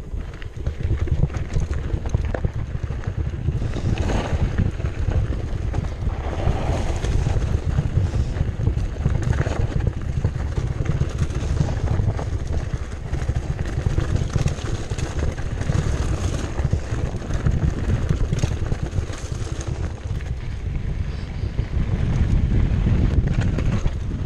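Wind buffeting a chest-mounted GoPro's microphone while a 2015 Cannondale Jekyll 4 mountain bike rolls down a rocky dirt trail, its tyres crunching over gravel and the bike rattling. The noise is steady and heavy, with a constant crackle of small knocks.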